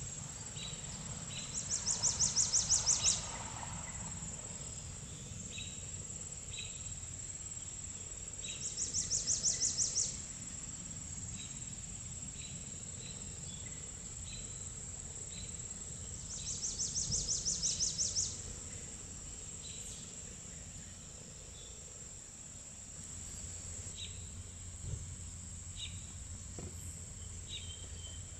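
Outdoor garden ambience: a high, rapidly pulsing insect-like trill sounds three times, each about two seconds long and swelling, over a steady high-pitched insect whine. Short high bird chirps are scattered through.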